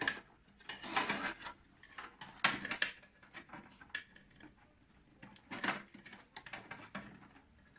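PC drive and power-supply cables being pulled loose and handled inside a desktop computer case: irregular plastic clicks, scrapes and rustles, with the loudest clatter about two and a half seconds in.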